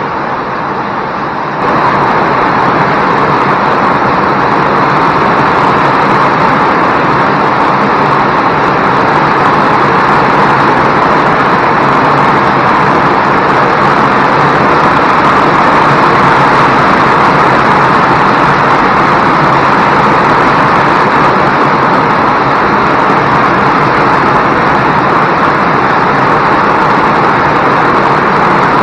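Heavy rain falling steadily, a dense even hiss that grows louder about two seconds in and then holds.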